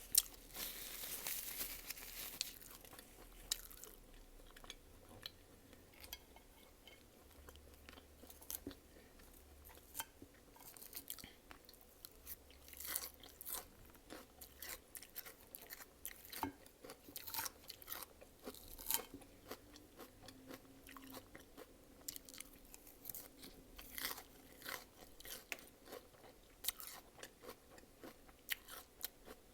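Close-miked eating sounds: a person chewing and crunching food with many small irregular clicks and crackles, typical of mukbang ASMR. It opens with a sharp click and about three seconds of hiss.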